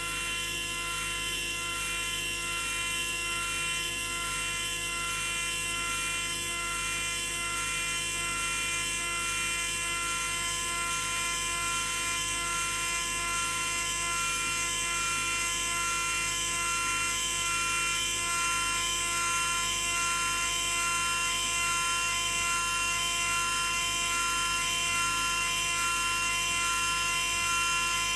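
Small geared DC motor whining steadily as it turns the lead screw of a miniature screw cylinder, slowly pushing the rod out.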